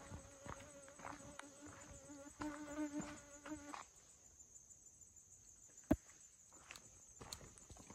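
A flying insect buzzing close by, a steady hum that stops about four seconds in, over a steady high-pitched chorus of insects. Footsteps scuff on the trail, with one sharp click near six seconds.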